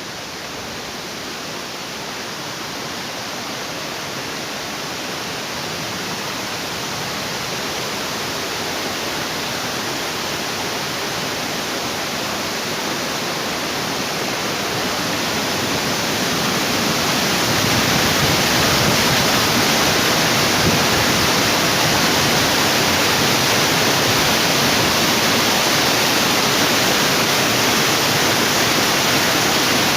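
Waterfall: a steady rush of falling water that grows louder for about the first two-thirds, then holds steady.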